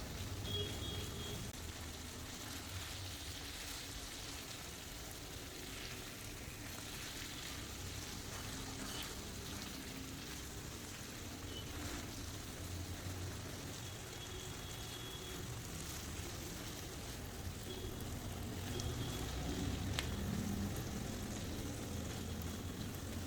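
Food frying in oil in a pan, a steady sizzle with a few faint clicks.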